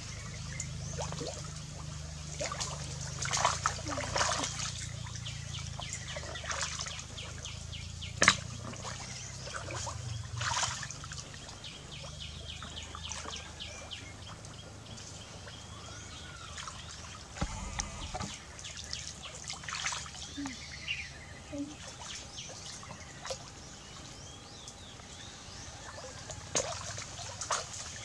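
Water splashing, sloshing and trickling as people wade and feel by hand through a shallow, reedy pond, in irregular splashes with a sharper one about eight seconds in.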